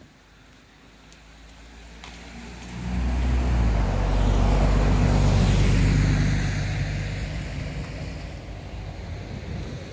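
A motor vehicle passing close by: engine rumble and tyre noise build about three seconds in, peak for a couple of seconds, then fade away.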